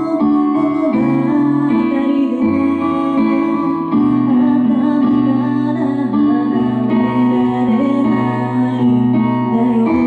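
A woman singing a song into a handheld microphone over instrumental accompaniment, amplified through a small venue's sound system.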